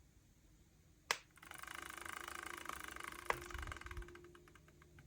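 Franklin's bells: a small metal clapper rapidly ticking back and forth between two little bells, driven by static charge, making a fast tinkling rattle. It starts with a sharp click about a second in, runs for about three seconds and thins out to scattered ticks.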